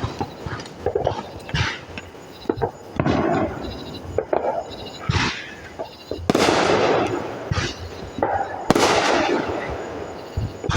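Fireworks going off: scattered pops, then two loud bangs about six and nine seconds in, each trailing off over a second or two.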